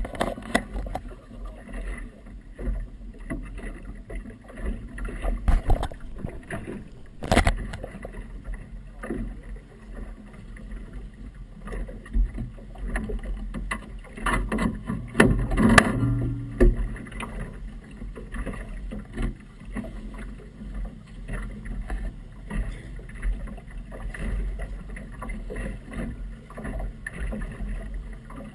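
Water slapping and rushing against a small boat's hull in choppy water, with a steady low rumble and irregular knocks and thumps; a sharp knock comes about seven seconds in and a louder cluster of knocks around fifteen to sixteen seconds.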